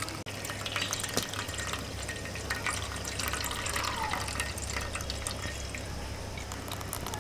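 Coconut milk trickling and dripping through a sieve into a bowl, with scattered small clicks.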